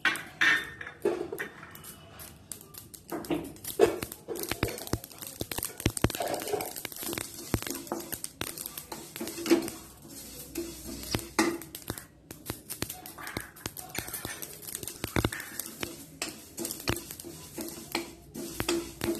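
Wooden spatula stirring sesame seeds as they dry-roast in a pan without oil, a steady run of irregular scraping, rattling clicks against the pan.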